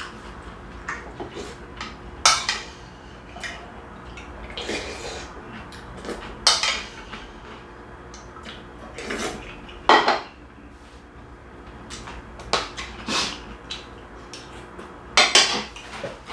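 Metal spoon clinking and scraping against a ceramic soup bowl in several sharp clinks while soup is eaten, with short slurps between them.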